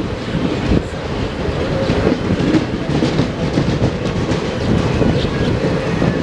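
Train rolling past close by, its wheels clacking over the rail joints in an irregular run over a steady rumble.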